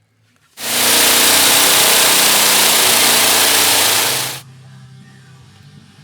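A power tool running for about four seconds on body sheet metal, a loud, even hissing noise that starts and stops abruptly.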